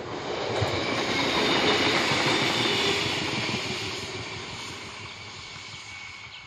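Diesel railbus passing close by: engine and wheel-on-rail noise swell to a peak a second or two in, then fade as it draws away.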